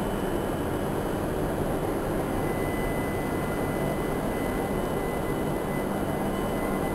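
Hokuriku Shinkansen train pulling out of the platform after its doors and platform gates have closed: a steady rumble and rushing noise, with a thin high tone joining about two seconds in.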